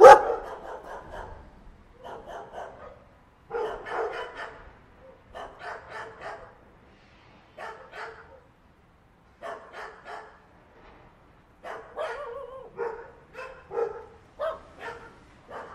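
A puppy yapping in quick clusters of three or four short, high barks, a cluster every second or two.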